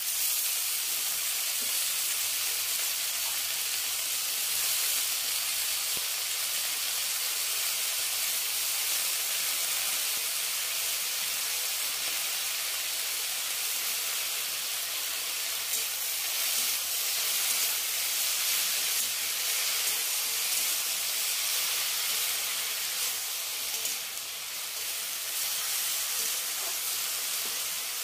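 Washed, chopped spinach sizzling steadily in hot oil in a frying pan, a continuous even hiss as the wet leaves cook.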